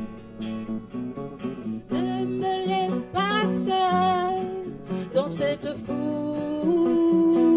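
Live acoustic guitar strumming with an electric guitar, and a woman singing over them from about two seconds in, her voice wavering on held notes and ending on a long held note.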